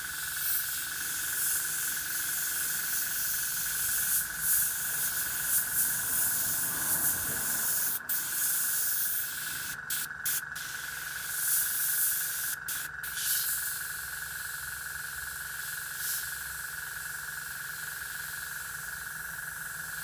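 Airbrush hissing as it sprays paint, with compressed air rushing through the nozzle and a steady tone underneath. The hiss cuts out briefly a few times around the middle.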